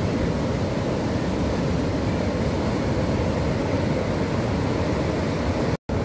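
Heavy surf breaking along an open ocean beach: a steady, deep roar of waves, broken by a brief moment of silence near the end.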